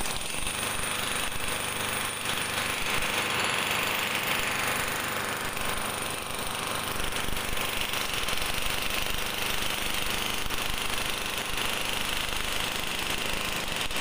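Corded electric demolition hammer chiselling into a concrete floor slab, a rapid, steady hammering that runs on without a pause.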